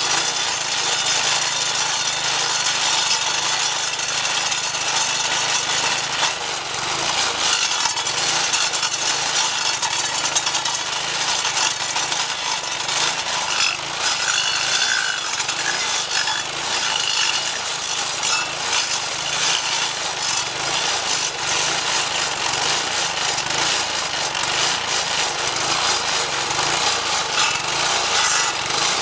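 Edger converted to a stump grinder, its Briggs & Stratton 4.5 hp vertical-shaft engine running under load as the 10-inch carbide-tipped blade grinds steadily into a hardwood mulberry stump.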